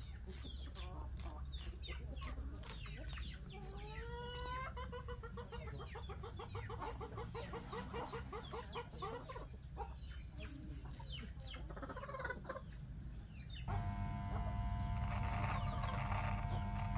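Chickens clucking, with a hen's long run of repeated rising calls from about four seconds in. Near the end an electric hair clipper switches on and runs with a steady hum as it trims a beard.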